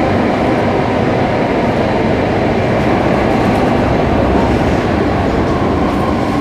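Singapore MRT train running, heard from inside the carriage: a steady, even noise of wheels on rails and the train's running gear, with no change in level.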